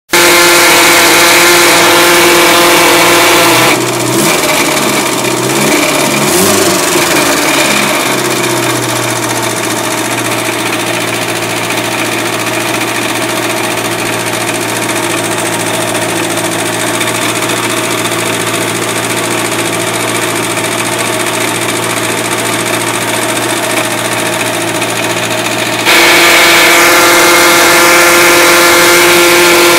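1969 MG Midget's four-cylinder engine running, with the generator giving off a bearing noise that the owner blames on a worn generator bearing. It runs louder and higher at first, drops to a lower idle about four seconds in, wavers for a few seconds, then holds steady until it rises again near the end.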